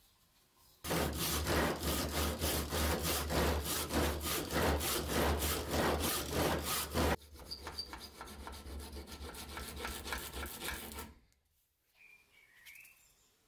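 Hand saw cutting through wood in steady back-and-forth strokes. It starts about a second in, turns quieter around the middle, and stops shortly before the end.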